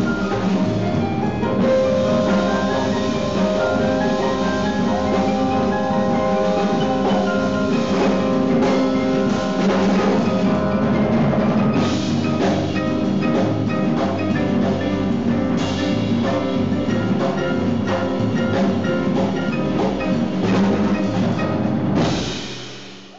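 Live jazz from a piano trio, with piano, upright double bass and drums playing together, cymbal and drum strikes running through the notes. The music fades out near the end.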